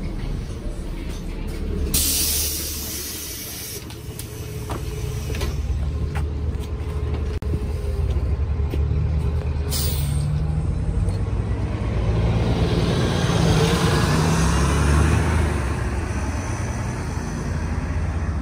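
Nova Bus LFS diesel city bus at a stop: a long hiss of air from its air brakes about two seconds in and a shorter hiss near ten seconds, then the engine rising in pitch as the bus pulls away.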